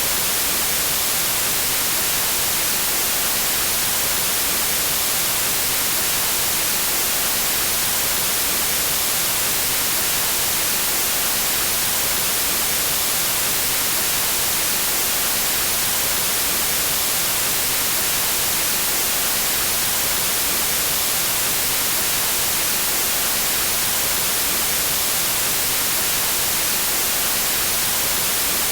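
Steady, unbroken white noise: an even hiss, bright and strong in the highs, with no change in level.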